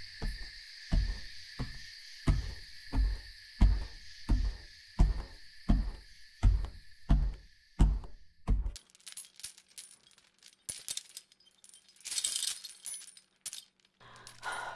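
Sound effects: heavy footsteps thudding about two a second over a steady high hiss, stopping about nine seconds in. Light metallic jingling and clinking follows.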